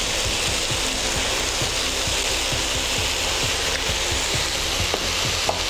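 Chicken pieces frying in masala in a non-stick pan: a steady sizzle with small irregular pops.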